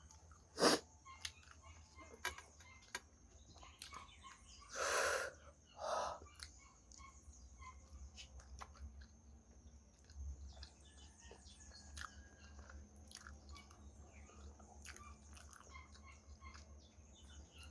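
A person chewing and eating close to the microphone, with many small wet clicks of mouth and food. There are two short breathy sounds about five seconds in.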